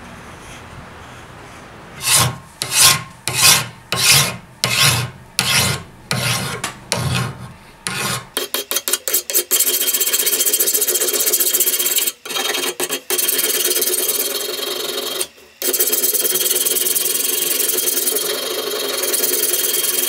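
A hand file scraping along the edge of a steel machete blade held in a vise, filing in the edge bevel. Slow, separate push strokes start about two seconds in, about one and a half a second, then after about eight seconds the strokes come much faster and run together into a near-continuous rasp with a few short breaks.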